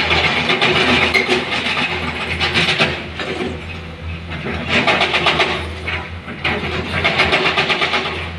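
Heavy diesel engine of the rock-loading machinery running with a dense, fast rattle, swelling and easing a few times as the load changes.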